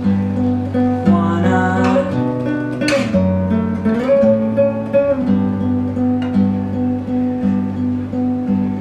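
Acoustic guitar playing an instrumental passage of a song, strummed chords in a steady, repeating rhythm.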